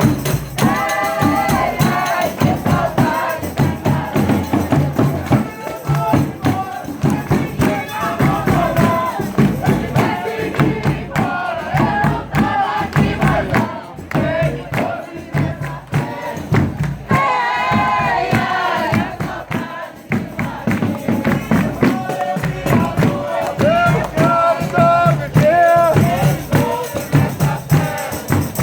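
Folia de Reis group singing a devotional chant in several voices, with a steady rhythmic beat of tambourines and other percussion throughout.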